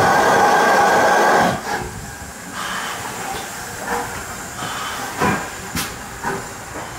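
GWR 4200 Class 2-8-0T steam tank locomotive letting off a loud, steady hiss of steam that cuts off suddenly about a second and a half in. After that it is quieter, with a few short, sharp puffs of sound at uneven intervals.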